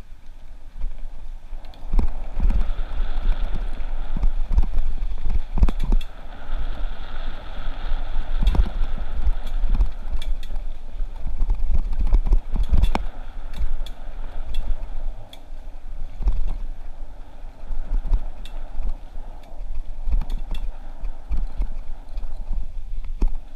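Mountain bike rolling fast down a dirt singletrack: wind rumbling on the microphone, a steady hiss of tyres on dirt, and frequent sharp knocks and rattles as the bike hits bumps in the trail.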